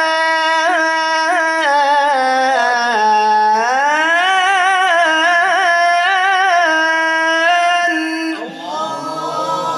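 A man's voice chanting Quran recitation (tilawah) unaccompanied, drawing one long melismatic line with quick trembling ornaments; the pitch dips about three seconds in, climbs again, and the voice softens about eight seconds in.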